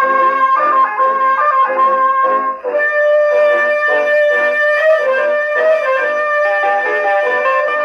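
A 1956 Japanese popular song played from a 78 rpm record on an acoustic Columbia Viva-tonal Grafonola (Model 116) phonograph. Long held melody notes sit over a steady, rhythmic accompaniment.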